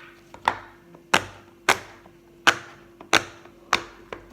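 A handheld fidget toy clicked in a steady series: about seven sharp snaps, roughly one every half second to second, over a faint steady hum.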